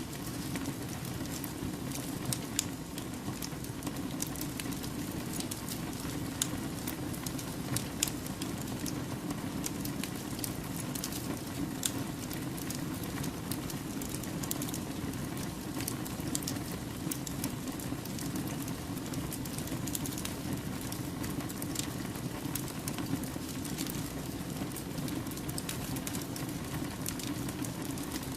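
Wood fire burning steadily with a low rushing flame and frequent sharp crackles and pops from the burning logs.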